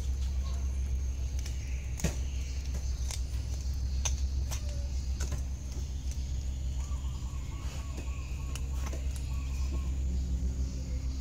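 A cat chewing and tearing at a piece of raw chicken, with scattered sharp clicks, over a steady low rumble.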